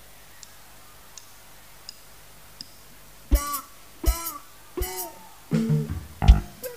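A rock band starts a song: four faint drumstick clicks count it in, then three sharp electric guitar chords land on the beat, and about two thirds of the way through the drums and bass guitar come in with the full band.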